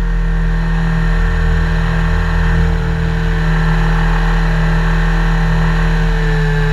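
Helicopter running steadily: a constant low drone with a thin, high, steady whine above it.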